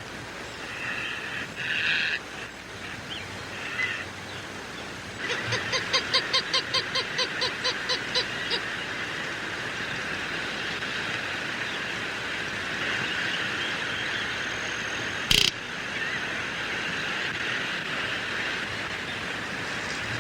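Greater roadrunner calling: a run of about a dozen quick, evenly spaced notes, about four a second, some five seconds in. A few shorter calls come in the first couple of seconds, all over a steady outdoor background hiss. A single sharp click comes about fifteen seconds in.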